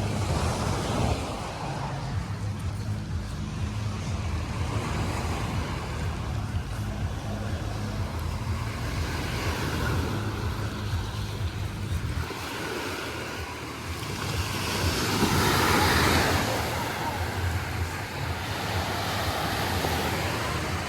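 Small sea waves washing onto a beach, with one larger wash building and peaking about three quarters of the way through. Wind rumbles on the microphone throughout.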